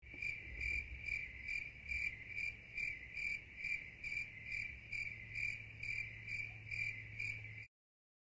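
Rhythmic high-pitched chirping, about two chirps a second, over a steady low hum; it starts abruptly and cuts off suddenly near the end.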